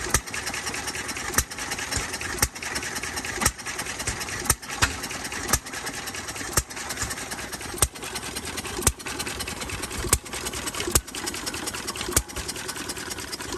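Fairbanks-Morse Eclipse 1 single-cylinder pump engine running slowly, with a sharp exhaust bang about once a second over a steady mechanical clatter.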